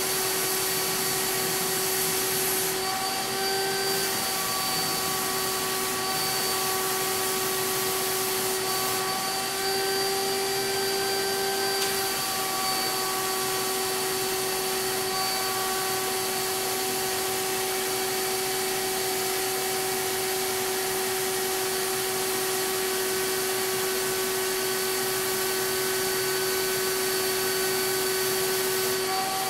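CAPSpray HVLP turbine sprayer running steadily, a high multi-pitched whine over a rushing hiss of air driven through the hose to the Titan Maxum II spray gun.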